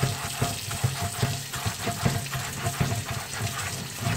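Tap water running into a stainless steel sink over a soapy cast iron ribbed grill pan, with a scrub pad scrubbing the pan in quick strokes, about three a second.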